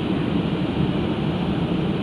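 Steady running noise of a Scania Citywide LF city bus under way, heard from inside the passenger cabin: an even, low-pitched mix of drivetrain and road noise.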